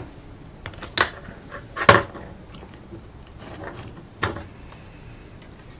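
Test leads and alligator clips being handled and plugged together on a bench circuit: three sharp clicks, about a second in, just before two seconds and past four seconds, with faint rustling between.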